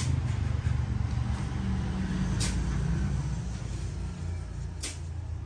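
Steady low rumble of a motor vehicle engine, with a few sharp clicks about every two and a half seconds.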